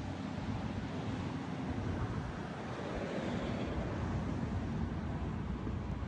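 Ocean waves breaking and washing on a beach, a steady rush of surf that swells a little partway through, with wind rumbling on the microphone.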